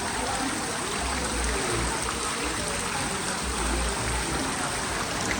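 Outdoor fountain water splashing and falling in a steady rush, with music playing faintly underneath.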